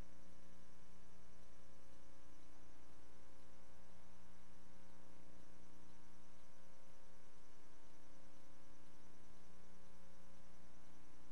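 Steady electrical mains hum with a faint hiss underneath, unchanging throughout, with no other sound: the bare track of silent archival film footage.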